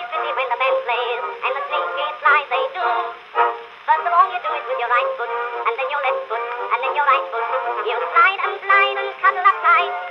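Background music: a song with high-pitched singing and no bass.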